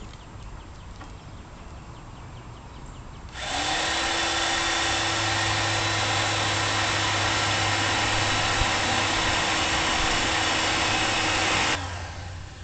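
Electric drill with a half-inch bit running steadily for about eight seconds, boring a bolt hole in the car body. It starts a few seconds in, its motor pitch rising briefly as it gets up to speed, and falling away as it stops near the end.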